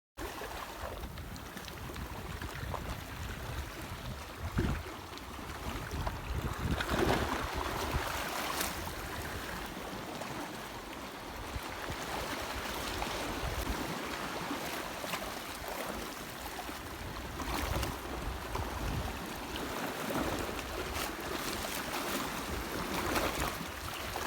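Water washing and splashing in swells, with wind rumbling on the microphone.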